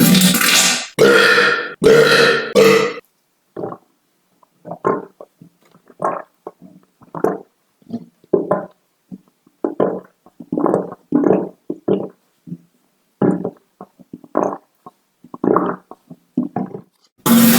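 A string of human farts: a few loud, longer ones in the first three seconds, then a long run of short, quieter ones, one after another with brief silences between.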